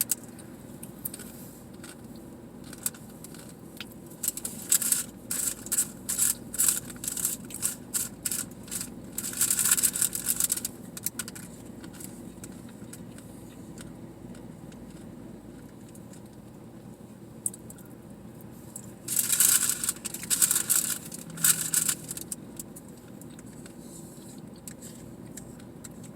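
Close-up eating noises from tacos: crunching and crinkling in two spells of quick, irregular clicks, the first from about four seconds in and the second near the two-thirds mark. A steady low hum of passing traffic runs underneath.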